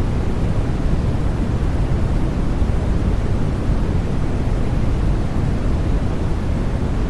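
Steady white noise for lulling a baby to sleep: an even, unbroken rush, deepest and strongest in the low end and thinning toward the top, with no rhythm or changes.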